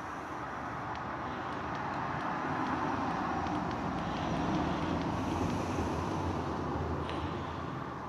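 Road vehicle passing: a steady rushing road noise that swells to a peak about halfway through and then fades.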